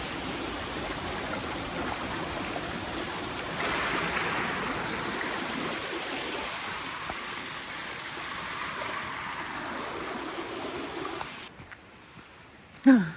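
Shallow creek running and trickling over rocks, swelling a little about four seconds in, then cutting off abruptly near the end. Just before the end, a short, loud vocal sound falls in pitch.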